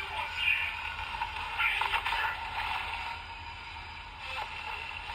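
Electronic sound effects and music playing from the built-in speaker of a Bandai Bake Magnum toy gun, running through its combo sound sequence.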